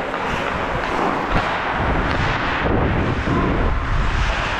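Hockey skate blades scraping and carving across the ice, with wind rushing over the helmet camera's microphone as the skater moves. There is a short knock about a second and a half in.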